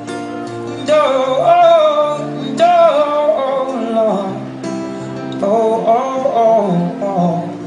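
Background music: an acoustic guitar song with a male voice singing a gliding melody over steady chords, coming in about a second in.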